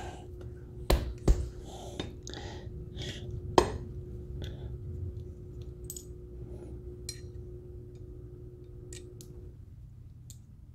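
Small metal parts clinking and tapping as A-arm thrust washers, dust caps and bolts are handled: a few sharp clinks in the first four seconds, then lighter ticks. A faint steady hum sits underneath and stops near the end.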